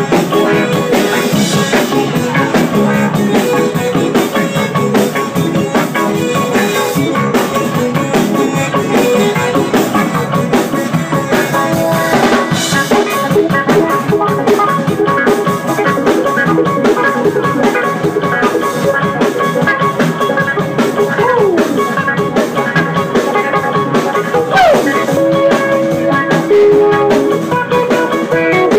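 Live rock band playing: electric guitar, bass guitar and drum kit, with guitar notes bending in pitch a few times near the end.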